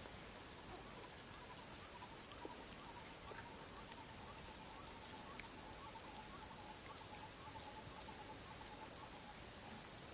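Faint outdoor insect chirping: short buzzy chirps repeating about once a second, with a fainter, lower repeated call underneath through the middle seconds.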